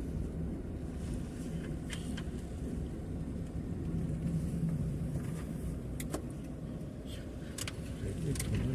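A car on the move, heard as a steady low engine and road rumble with a few faint clicks.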